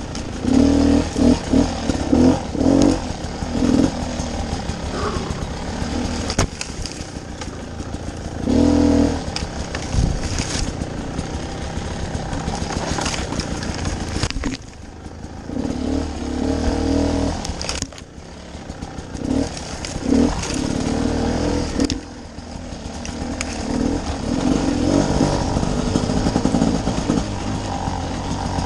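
Two-stroke dirt bike engine, a Beta 300 RR, revving in uneven surges and easing off again, with a few sharp knocks along the way.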